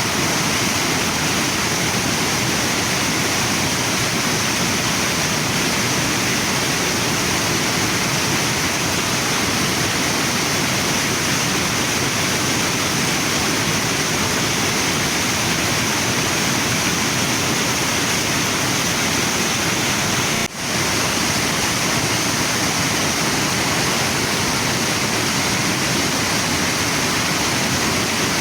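Waterfall and river water rushing steadily, with a momentary drop in level about two-thirds of the way through.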